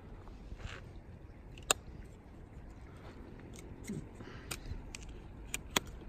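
A few sharp clicks from a handheld flashlight being handled against a bicycle handlebar: one about two seconds in, and two close together near the end, over a low steady hiss. A short falling creak comes about four seconds in.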